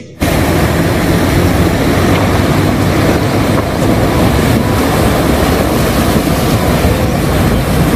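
Steady, loud rushing and rumbling vehicle noise, cutting in abruptly just after the start and holding unchanged throughout.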